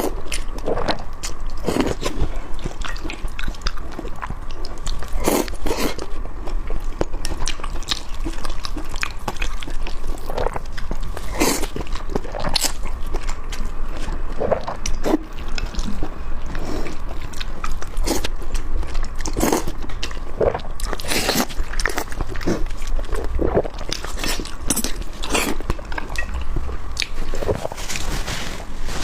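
A person eating close to the microphone: irregular chewing, biting and wet smacking sounds with occasional crunches. A faint steady tone runs underneath.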